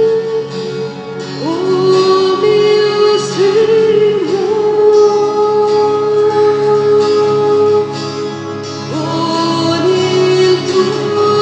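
Music: singing with long held, wavering notes over instrumental accompaniment.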